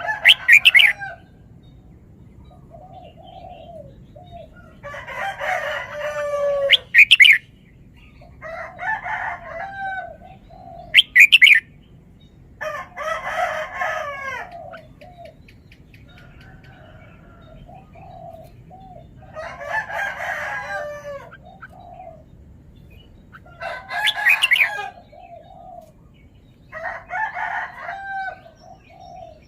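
Red-whiskered bulbul singing, a run of short warbling phrases of a second or two, repeated every few seconds with short pauses between them.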